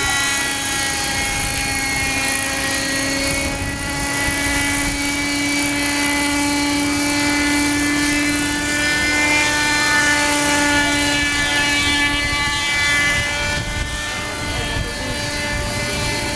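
Hirobo Shuttle radio-controlled helicopter's small glow engine and rotor running at a steady high whine as it flies on floats low over the water. The pitch wavers slightly, and it grows louder about halfway through as it passes close.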